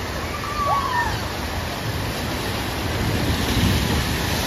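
Steady rushing of water on a speed water slide, growing louder near the end as a rider skims into the run-out and throws up a big spray.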